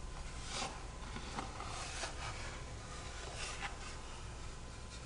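Kydex holster and its belt clip handled in the hands: several brief plastic scrapes and light clicks.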